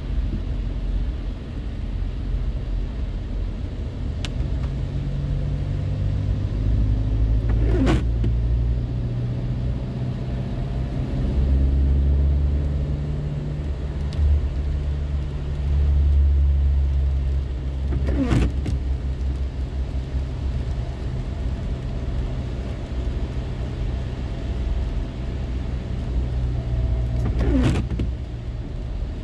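Inside a moving car on a wet road: steady engine and tyre drone. The windscreen wipers make three single sweeps about ten seconds apart, each a brief rising squeak.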